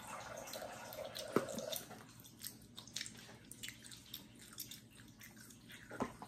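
Faint, irregular wet clicks of someone chewing a soft gummy candy, an eggnog-flavoured gummy, with a short muffled murmur in the first couple of seconds.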